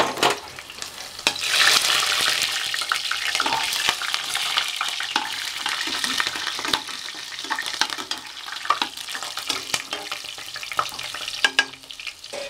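Whole spices and slit green chillies sizzling in hot oil and ghee in an aluminium pressure cooker, stirred with a spoon that clicks and scrapes against the pan. The sizzle swells about a second and a half in.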